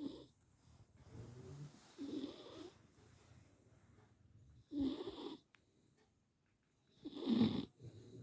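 A beagle snoring in its sleep: three loud snoring breaths about two and a half seconds apart, with quieter rumbling breaths between them.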